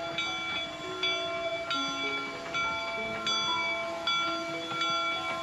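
Background music of bell-like struck tones playing a melody, each note ringing on, with a new note about every half second.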